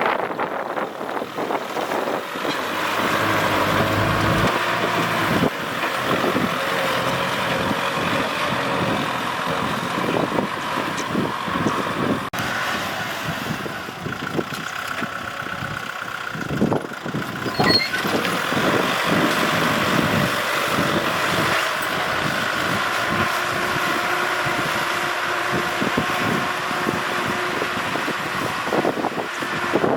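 Farm tractor engine running steadily under load, with a continuous irregular clattering over it.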